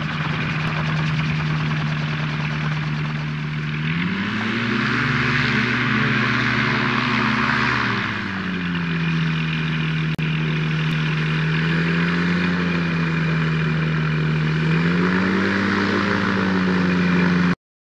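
Dominator gyroplane's engine and pusher propeller running close by. The engine note rises about four seconds in, drops back about four seconds later, rises again near the end, then the sound cuts off abruptly.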